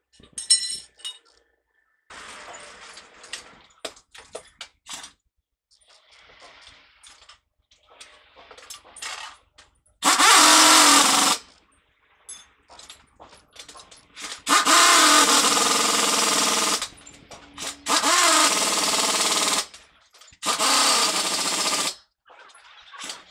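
Pneumatic impact wrench on a truck wheel, running in four bursts of a second or two each, with smaller knocks and clatter of tools before and between them.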